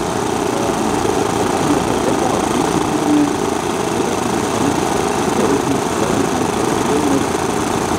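Small model-aircraft piston engines running steadily with a dense, unbroken engine noise.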